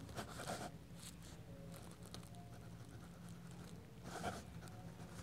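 Faint scratching of a pen writing a cursive signature on paper, in short strokes, over a steady low hum.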